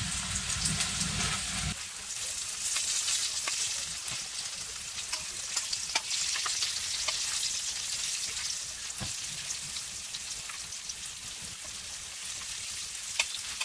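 Battered bluegill fillets sizzling steadily as they shallow-fry in oil in a stainless steel camping pan, with occasional light clicks of a fork against the pan as the fillets are turned.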